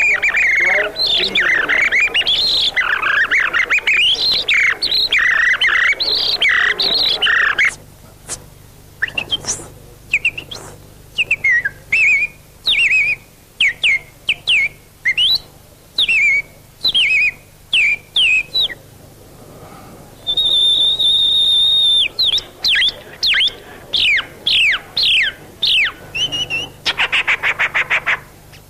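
Bird-call imitations made by men at a microphone. A busy run of chirps and squawks comes first, then single falling chirps about one a second. About two-thirds of the way in there is a held steady whistle, and near the end a fast trill.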